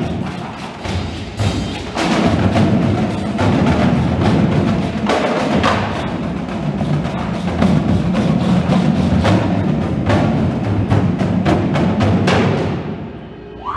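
Indoor percussion ensemble playing: a marching drumline of snare, tenor and bass drums with front-ensemble mallet percussion, in fast, dense strokes. The playing fades away near the end.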